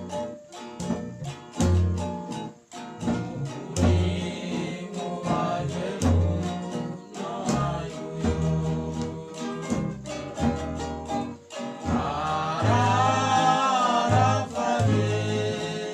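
Papuan string band playing a folk song: acoustic guitars and ukuleles strumming, a plucked homemade box bass sounding low notes on the beat, and a group of men singing together, the voices loudest near the end.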